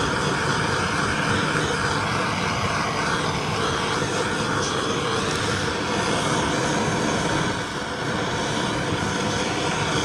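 Handheld butane kitchen blowtorch burning with a steady hiss as its flame is passed over a greased leather boot, with a brief slight dip about eight seconds in.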